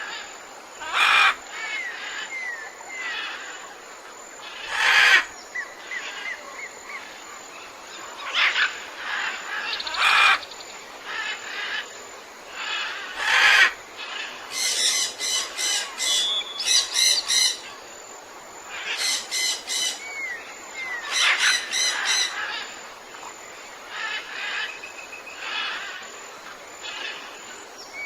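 Mixed chorus of tropical forest birds calling. A few loud harsh calls stand out, rapid runs of quickly repeated notes come in the middle, and short slurred whistles sound between them.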